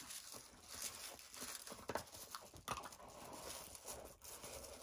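Faint handling sounds of a doll being lifted out of a cardboard box and the box insert being worked at: soft rustling with a few scattered light taps and clicks.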